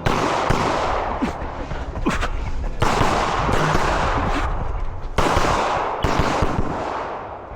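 Pistol gunshots: three loud shots, near the start, about 3 s in and about 5 s in, each followed by a long echoing tail, with fainter shots in between.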